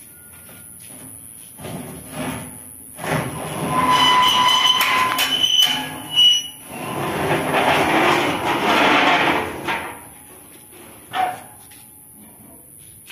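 Metal chaffer sieve of a Swaraj 8100 combine harvester being dragged out of its housing, grinding and screeching against the frame for several seconds. A short knock follows near the end.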